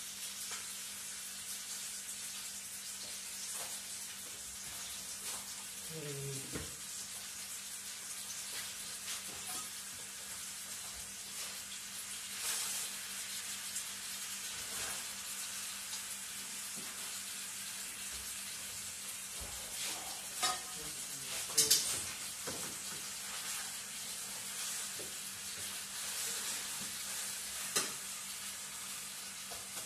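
Pot roast meat and vegetables sizzling steadily in a pan on a stove turned up high, with a few short knocks, like a utensil against the pan, about two-thirds of the way through and again near the end.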